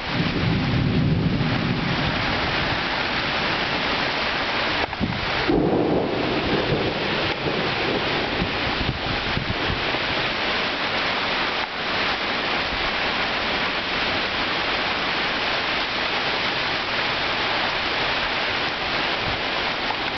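Heavy thunderstorm downpour: a steady, loud hiss of rain, with low rumbles of thunder near the start and again about six seconds in.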